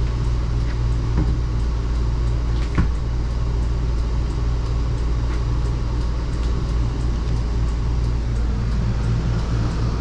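Steady low drone of the motorhome's onboard generator running, with one short knock about three seconds in.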